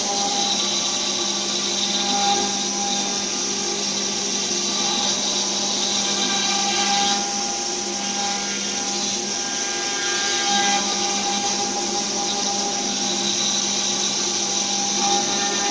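ATC CNC router's spindle milling a wooden board: a steady machine whine made of several held tones over a constant hiss, shifting slightly a couple of times as the cut moves.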